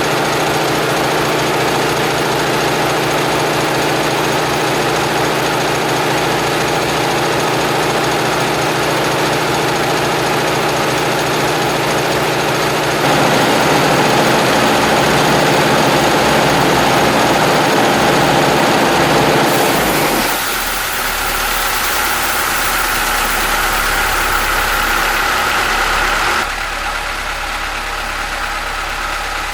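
Homemade air compressor running steadily with a loud mechanical drone and knock. Its sound changes abruptly about 13, 20 and 26 seconds in.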